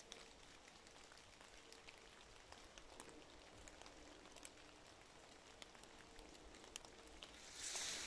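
Near silence in bare woodland, with faint scattered drips of rain or water falling from the trees. A brief rustle of leaf litter comes near the end.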